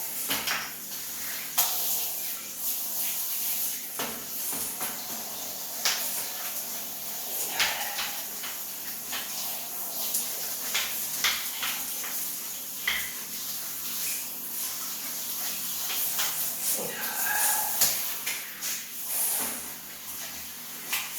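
A brush scrubbing a wet, soaped steam-mop cloth to get the grime out, in irregular rubbing strokes with scattered scrapes and knocks over a steady hiss.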